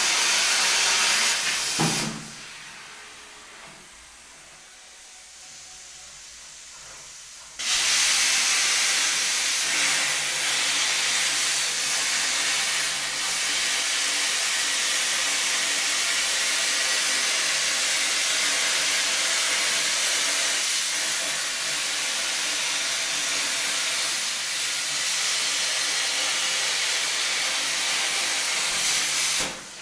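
Plasma cutter torch cutting with a loud, steady hiss. The arc cuts off about two seconds in, then fires again suddenly about five seconds later and runs steadily until it stops just before the end.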